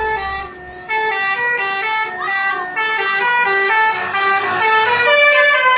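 Bus 'telolet' musical air horn playing a quick tune of short stepped notes, with a brief break about half a second in, getting louder near the end.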